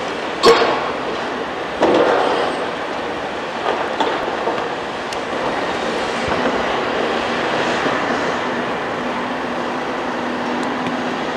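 Demolition of a brick building by a large tracked excavator with a demolition grab: crashing and clattering of breaking masonry and debris over the excavator's steady engine. The loudest crash comes about half a second in and another about two seconds in, with smaller knocks after.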